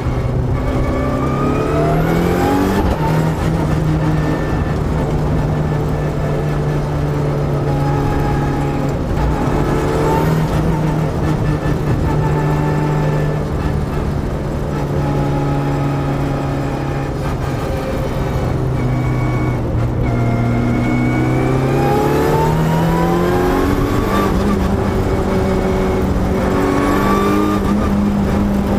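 Mitsubishi Lancer Evo's turbocharged four-cylinder engine heard from inside the car on track. The revs climb repeatedly and break off at gear changes through its paddle-shift sequential gearbox, with steadier stretches between the pulls.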